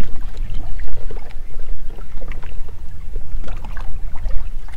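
Fishing boat out on the water: a heavy low rumble that rises and falls unevenly, with wind buffeting the microphone and scattered light clicks.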